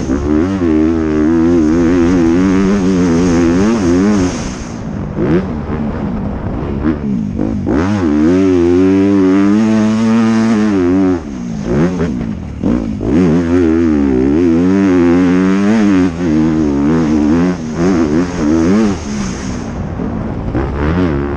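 Honda CRF250R motocross bike's single-cylinder four-stroke engine at racing revs. The pitch climbs and falls over and over as the throttle is worked through corners and gear changes, with the throttle chopped briefly several times.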